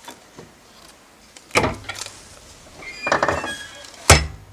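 Sublimation heat press being worked: a heavy thunk about a second and a half in, a rattling clatter around three seconds, and a louder sharp thunk near the end.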